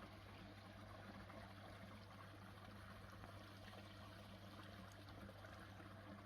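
Faint, steady pond water running and trickling, with a low steady hum underneath.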